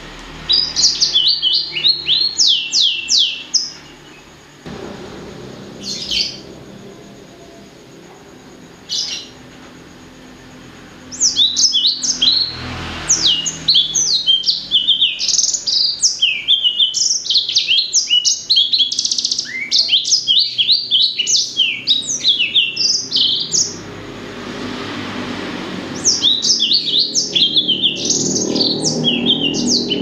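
A blacksang, a hybrid finch bred from a blackthroat (black-throated canary) and a sanger, singing loud, rapid strings of high, quick downward-sweeping notes. The song comes in bouts: a short phrase at the start, two brief bursts, then a long run of about twelve seconds beginning about eleven seconds in, and another run starting near the end.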